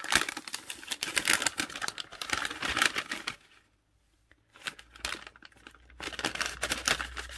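Paper packet crinkling and rustling as it is opened and handled, with a short pause of about a second in the middle before the crackling starts again.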